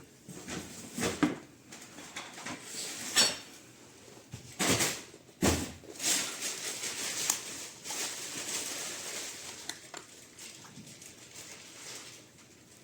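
Handling noise as a refrigerant leak detector is unboxed and fitted with its battery: scattered plastic clicks and knocks with some rustling, the sharpest knocks about three and five seconds in.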